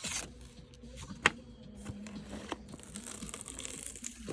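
Packaging being handled and unwrapped, with rustling and crinkling and a sharp click about a second in, then a softer click and more faint rustling.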